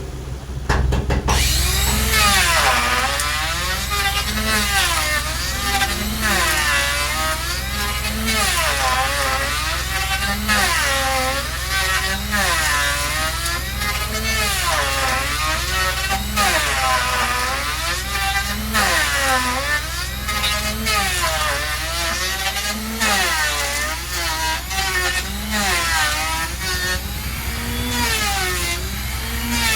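Saw cutting wood in regular strokes, a little under one a second, each stroke rising and falling in pitch, starting about a second in. A steady low engine hum runs underneath.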